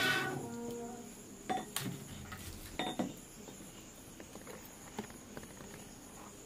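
Blowing hard through a blow pipe into a wood fire in a clay stove, stopping about half a second in; then a few scattered knocks and clicks as sticks of firewood are pushed about in the fire.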